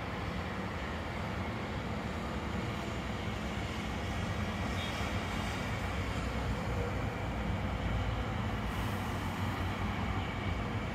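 Duewag articulated tram moving slowly through a tight turning loop: a steady low rumble of wheels on rail and traction equipment, growing a little louder toward the end.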